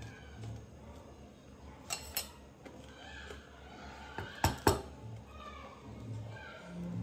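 Metal spoon clinking against a bowl while eating: a pair of light clinks about two seconds in and two sharper, louder ones around four and a half seconds.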